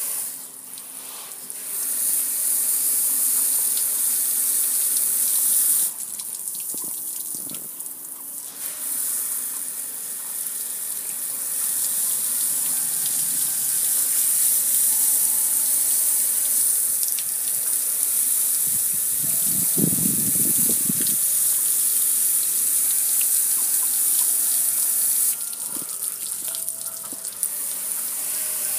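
Water spraying from a hose nozzle onto a metal gas grill, a steady hissing splash that eases off briefly three times. About two-thirds through there is a deeper drumming splash as the spray hits the grill's body.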